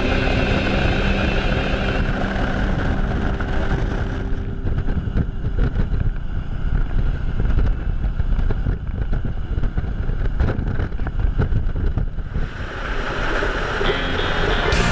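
Harley-Davidson Heritage Softail's air-cooled V-twin running at road speed under a steady rush of wind on the microphone, with gusts. Background music fades out over the first few seconds and comes back in near the end.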